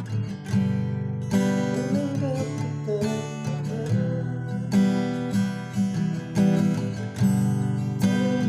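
Acoustic guitar music: chords strummed in a steady rhythm, a little more than one strum a second.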